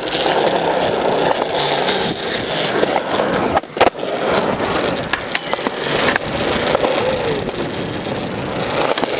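Skateboard wheels rolling on smooth concrete close up, a steady rolling noise, with a short break and a sharp click about four seconds in.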